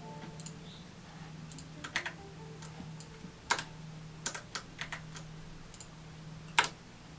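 Computer keyboard typing: irregular, scattered keystrokes with pauses between them, one sharper click about two-thirds of the way through, over a steady low hum.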